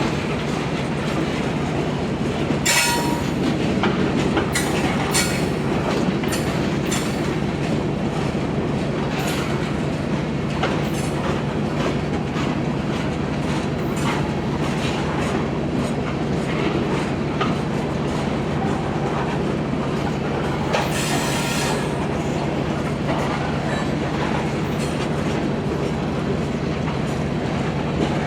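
Freight train switching: a diesel locomotive runs steadily while railcars roll with a rapid series of clanks and clicks from wheels and couplers. Two brief, louder high-pitched bursts of wheel squeal come about three seconds in and again about twenty-one seconds in.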